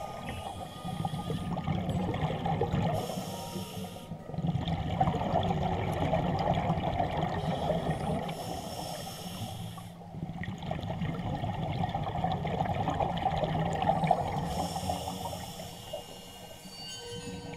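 Scuba diver breathing through a regulator underwater: three slow breath cycles, each a short hiss followed by a long rush of gurgling exhaled bubbles.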